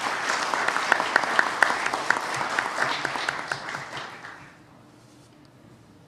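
Audience applauding, with one pair of hands close by clapping distinctly at about four claps a second. The applause fades out a little over four seconds in.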